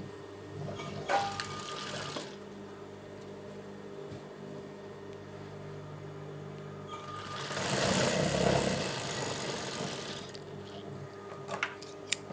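Industrial single-needle sewing machine stitching a folded hem in cotton fabric. It runs in a short burst about a second in and in a longer run of about two and a half seconds past the middle, over a steady low hum, with a few sharp clicks near the end.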